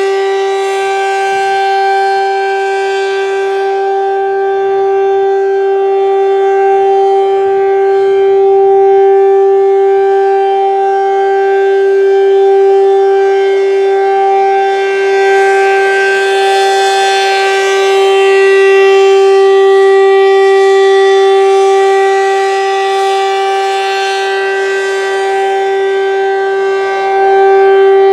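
ACA P-15 electromechanical warning siren sounding a steady tone at full speed during a 3-minute test, the pitch holding level while the loudness swells and fades every few seconds.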